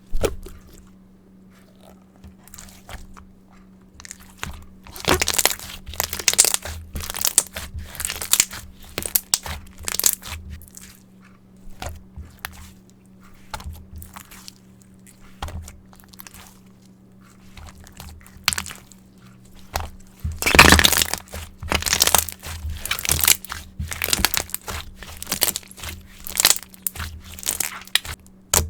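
Slime mixed with mirror powder being squeezed and pressed by hand, giving irregular sticky clicks and crackling pops. It pauses in places, and there is a louder dense run of crackling about two thirds of the way through.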